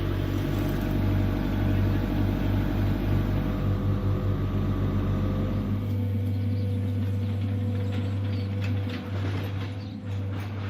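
Engine of a heavy construction machine running steadily with a low hum. The sound changes about six seconds in, and a few knocks and clicks come near the end.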